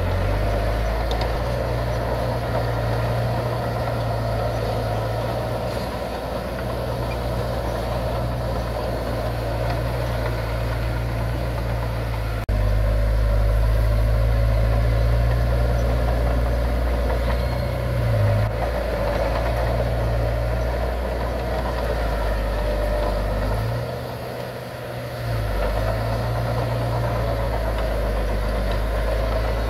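Heavy diesel earthmoving machinery, bulldozer and dump trucks, running steadily with a deep low drone. The sound steps up suddenly about twelve seconds in and dips briefly a little before the end.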